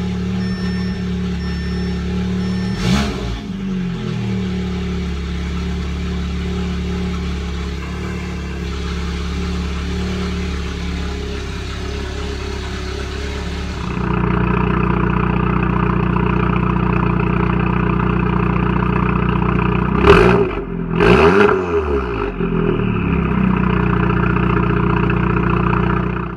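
Audi S3's turbocharged four-cylinder engine idling through a newly fitted CTS aftermarket downpipe, with a short blip of revs about three seconds in. About halfway through the sound jumps louder, heard at the quad tailpipes, and two quick throttle blips rise and fall near the end, the loudest moments.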